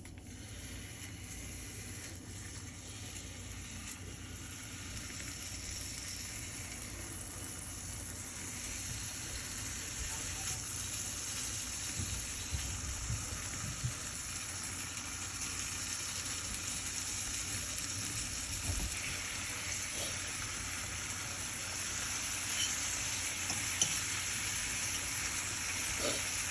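Food sizzling in a hot frying pan: a steady hiss that slowly grows louder, with a few small pops and clicks.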